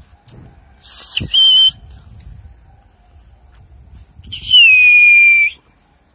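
Two loud, shrill human whistles aimed at a flock of pigeons in flight. The first is short, about a second in. The second, just past the middle, is longer: it starts high, drops a little in pitch and holds steady before cutting off.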